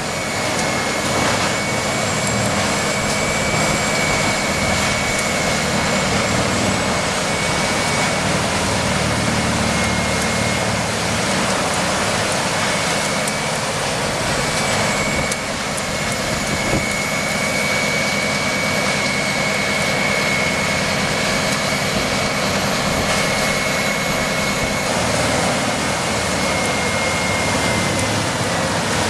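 Heavy wood-processing machine running steadily, its engine noise carrying a high whine that drifts slightly in pitch.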